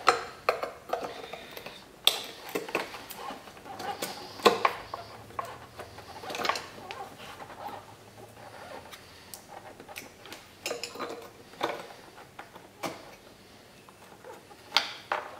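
Irregular plastic clicks and rattles as twist-lock bulb sockets and a wiring harness are worked out of the back of a 1997 Buick LeSabre headlight assembly, with a few sharper clicks scattered through.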